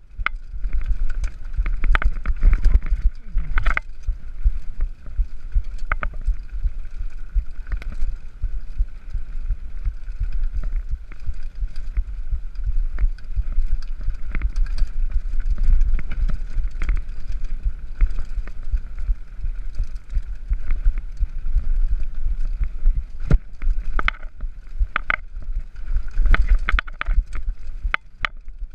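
Mountain bike descending a dirt forest singletrack, heard through an action camera on the rider: a constant low rumble of tyres and wind with frequent sharp knocks and rattles as the bike hits roots and rocks. The knocks cluster in the first few seconds and again near the end.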